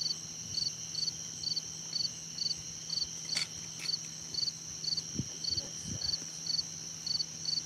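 Crickets chirping, a short high chirp about twice a second over a steady high insect trill. Two sharp clicks come about halfway through.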